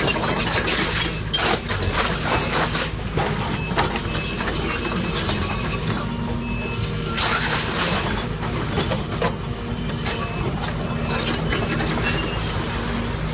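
Sumitomo SH210LC excavator's diesel engine running steadily. Now and then there are short bursts of scraping and knocking.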